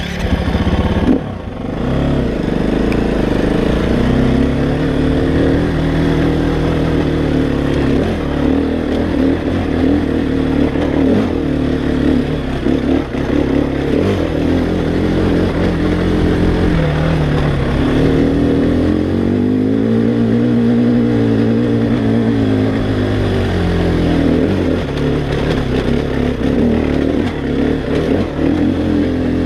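KTM 350 XCF-W dirt bike's single-cylinder four-stroke engine running through a full Akrapovic exhaust while being ridden, its pitch rising and falling with the throttle every few seconds.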